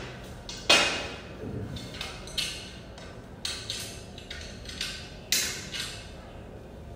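Parts of a clothes stand being fitted together: about ten irregular sharp knocks and clinks of its tubes and fittings, each ringing briefly, the loudest about a second in and again near five seconds.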